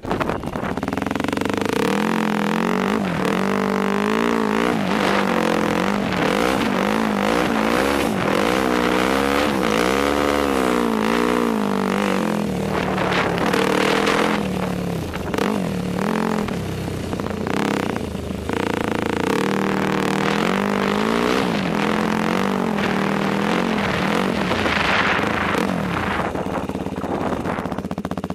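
Yamaha YFZ quad (ATV) engine running under way, its pitch rising and falling again and again as the throttle is worked and the gears change.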